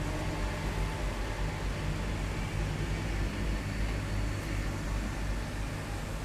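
Heavy military vehicles' engines running in a steady low drone, with tyre and road noise over it.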